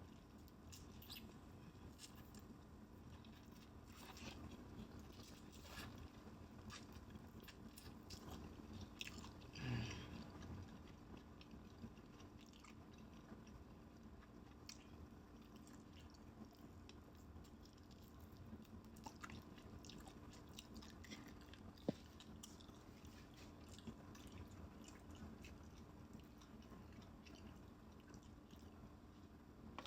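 Faint close-up chewing and biting of fried chicken, with small crunches and wet mouth clicks scattered throughout; a louder bite about ten seconds in and a single sharp click a little past two-thirds of the way through.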